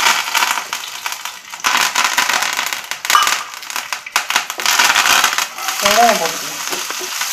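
Hot oil spluttering and crackling in a non-stick frying pan as fresh curry leaves hit it along with fennel seeds and cinnamon. About six seconds in, sliced shallots are tipped in and the crackle settles into a steadier sizzle.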